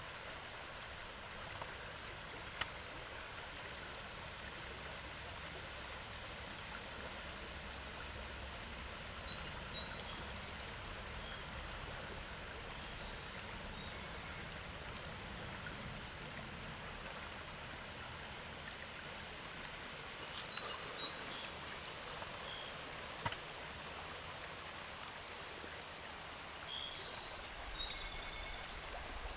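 Steady rush of a shallow river flowing over rocks, with a few short high chirps and a couple of sharp clicks.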